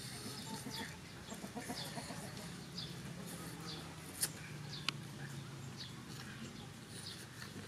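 Chickens clucking and calling from a poultry yard, many short high calls repeating throughout. Two sharp clicks stand out a little past the middle.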